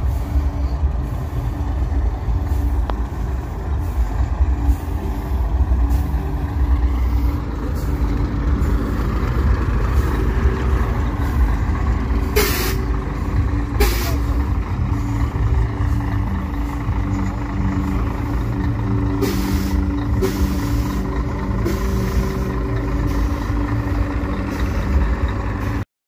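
Scania 113 truck's diesel engine running steadily, with two short sharp hisses of released air about halfway through and a fainter one a few seconds later.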